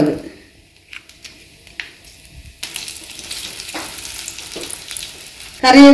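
Hot coconut oil sizzling in an aluminium kadai as dried red chillies fry in a tempering with mustard seeds and grated coconut. It is faint at first with a few light ticks, then settles into a steady sizzle from about two and a half seconds in.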